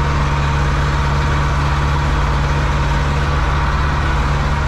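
Zetor 7245 tractor's four-cylinder diesel engine running steadily at full throttle under load, pulling a wheat trailer, heard from inside the cab.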